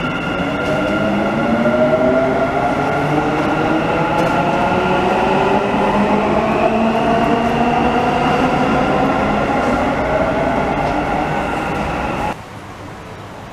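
Dubai Metro train accelerating, its electric traction motors whining in several tones that climb steadily in pitch over the rumble of the wheels on the rails. It cuts off abruptly near the end, leaving a much quieter steady background.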